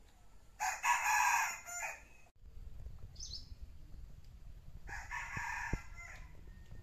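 A rooster crowing twice, the first crow about a second and a half long and the louder, the second near the end; a small bird chirps briefly between them.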